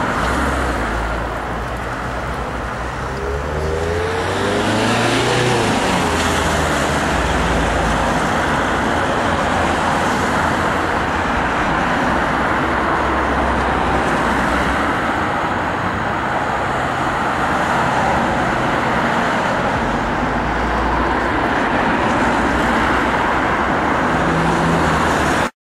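Steady rumble and hiss of road traffic, with a vehicle passing about four to six seconds in, its pitch sliding as it goes by. The sound cuts off suddenly near the end.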